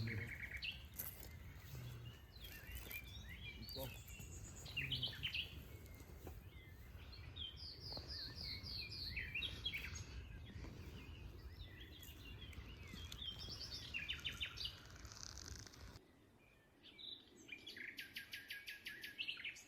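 Wild birds singing in a forest: repeated runs of high chirps and trills over a low background rustle. Near the end the rustle falls away and a fast, rapidly repeated trill stands out.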